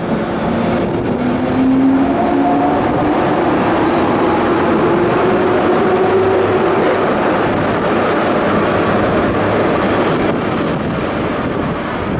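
JR West 103 series electric train moving through the station: a steady rumble of wheels on rail under a motor whine that rises slowly in pitch as it gathers speed.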